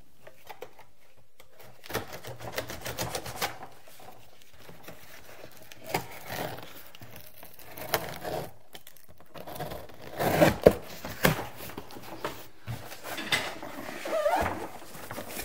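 A knife slitting the packing tape on a cardboard box, with irregular scraping, ripping and rustling of tape and cardboard as the box is worked open and shifted.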